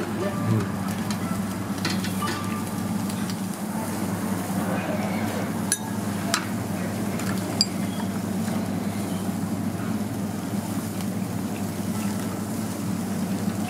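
Yakiniku restaurant table sounds: a steady low hum with a faint hiss of meat sizzling on a tabletop grill, and a few sharp clinks of dishes and chopsticks.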